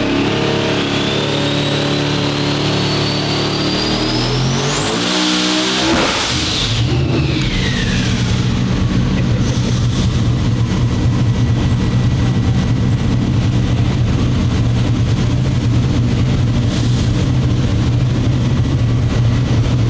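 Twin-turbocharged SML race engine making a full-throttle dyno pull: revs and turbo whine climb for about five seconds, then a boom as it hits the 45 psi ignition cut and blows the exhaust off. The turbo whine then falls away and the engine runs on steadily at low revs.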